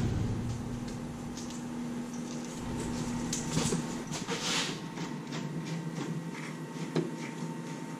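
Sheet metal being slid and shifted across the slats of a homebuilt CNC plasma table, with scraping and light knocks that come thickest around the middle. A steady hum runs through the first half and stops abruptly, and one sharp knock comes near the end.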